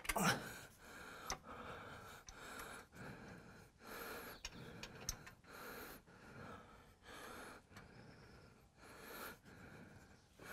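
A man breathing hard, puffs in and out about once a second, while he strains at the job, with a few faint metal clicks in between.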